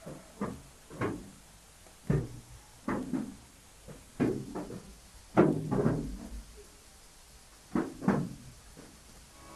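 A series of about ten irregular knocks and thumps, spaced unevenly, each dying away quickly.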